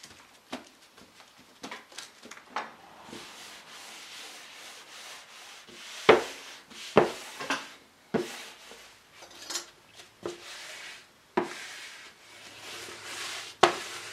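Fabric backing being rubbed down by hand with a small tool onto freshly glued wooden tambour slats, pressing it into the glue: a steady scuffing rub broken by a dozen or so sharp knocks, the loudest about six and seven seconds in and near the end.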